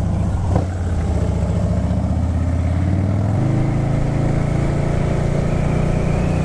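Harley-Davidson Dyna Low Rider's V-twin engine running under way on the road. About halfway through, its note steps up to a higher pitch as the bike pulls harder.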